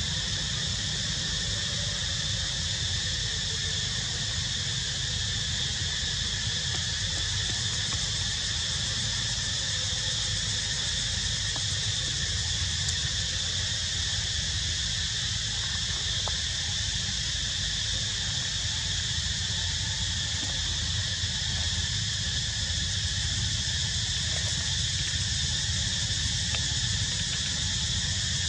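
Steady, high-pitched chorus of insects droning without a break, with a low rumble underneath.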